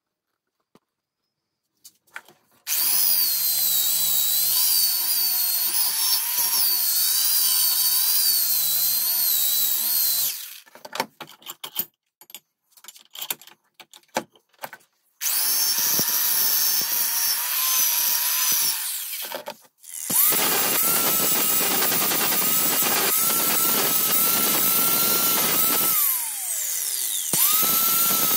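Small electric power tool cleaning and polishing a steel spanner, running in several long stretches with a high whine that wavers as it is pressed to the work. Near the end the whine falls away as the motor slows, then it starts up again.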